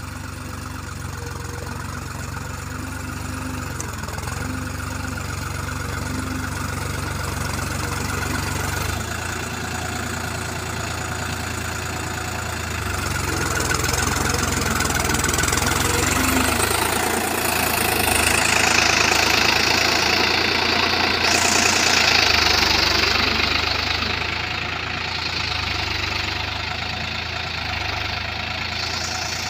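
A New Holland tractor's diesel engine running steadily as it pulls a cultivator between rows of cotton. It grows louder as the tractor comes closer and is loudest about two-thirds of the way through.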